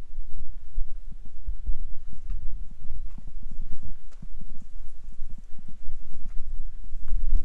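Wind rumbling on the microphone, with irregular footsteps on a trail.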